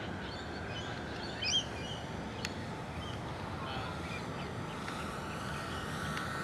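Faint, steady whine of a large electric model Hercules's four motors in flight, growing louder toward the end, over outdoor background noise. A bird chirps briefly about a second and a half in.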